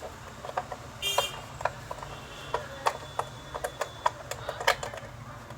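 Irregular small metallic clicks and clinks of hand tools working against a sewing machine's metal body as its screws are undone. One brief ringing clink comes about a second in.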